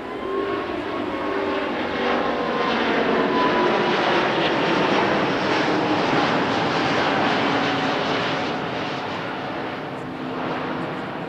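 Airbus A350-900 passing overhead, its two Rolls-Royce Trent XWB turbofans making a loud jet rush with faint whining tones that slide slightly down in pitch. The noise swells to a peak mid-pass and fades as the airliner banks away.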